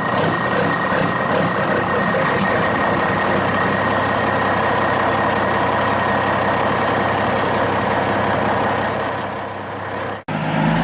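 Small DC toy motor running steadily with a dense whirring buzz and a thin high whine, cutting off abruptly about ten seconds in.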